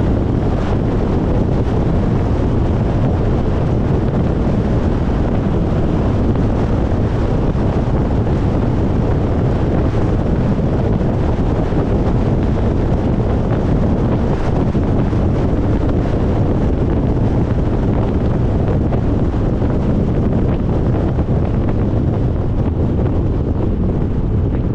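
Steady wind and road noise from a car driving at highway speed, with wind rushing over the microphone. It holds an even level throughout.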